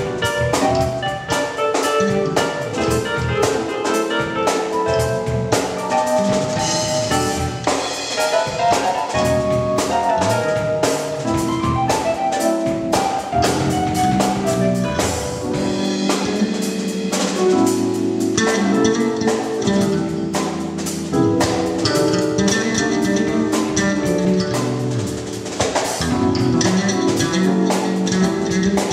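Drum kit playing a gospel groove, snare, rimshots and bass drum, over sustained keyboard chords and bass.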